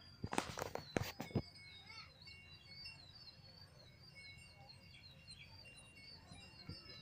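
Small birds chirping in quick repeated notes in the background, with a few short knocks in the first second and a half.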